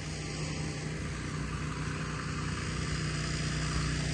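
Engine of a pressure-washing rig running steadily at a constant speed.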